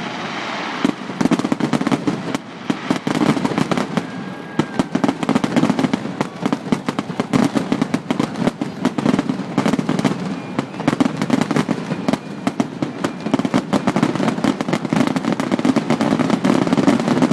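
Fireworks going off continuously: a dense, rapid run of sharp cracks and pops.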